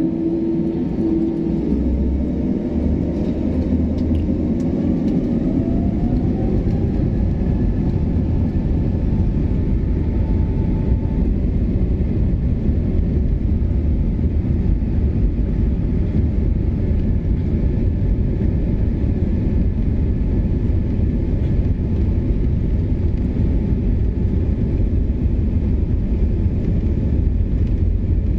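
Jet airliner's engines heard from inside the cabin, spooling up with a rising whine over the first several seconds, then a steady loud rumble as the aircraft rolls for takeoff.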